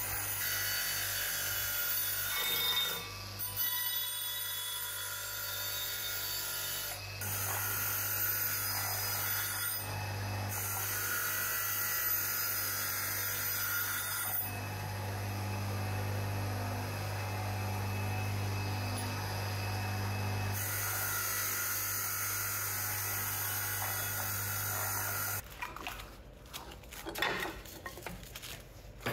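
Bench grinder motor running with a wire cup brush as a steel pickaxe head is pressed against it: a steady motor hum under a harsh wire-scrubbing noise that changes several times as the piece is shifted and re-pressed. The motor stops a few seconds before the end, leaving a few light knocks.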